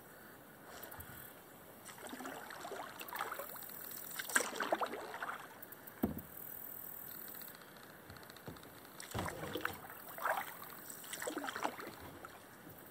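Kayak paddle strokes: the blade dipping, pulling and dripping in calm water, in two spells of several strokes each, with a single sharp knock about six seconds in.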